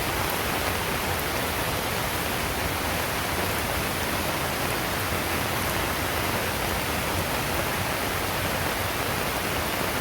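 Steady rushing hiss of torrential rain and runoff water, even and unbroken throughout.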